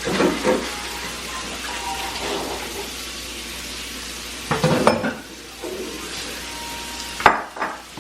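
Food sizzling and frying in a pan, a steady hiss, with handling knocks about halfway through and a sharp click near the end as the air fryer basket is loaded and pushed in.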